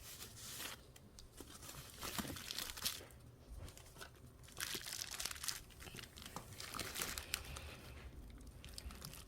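Packaging being crinkled and torn open by hand, in irregular bursts of rustling.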